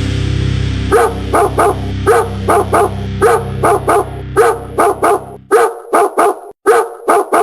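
A dog barking in quick short barks, about three a second, starting about a second in. Under it a low steady hum stops about two-thirds of the way through.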